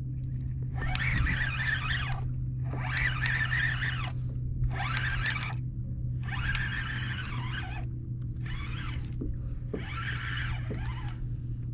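Fishing reel cranked in about six bursts of a second or so each, a whirring with short pauses between turns, over a steady low hum, as a hooked fluke is reeled up to the kayak.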